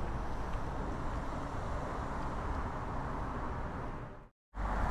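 Steady road traffic noise from a nearby dual carriageway, with a low rumble under it. It cuts to silence for a moment near the end.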